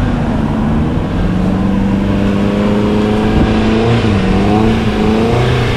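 Kia off-road SUV's engine running under load during a winch recovery: a steady drone that sags briefly in pitch about four seconds in and again near the end.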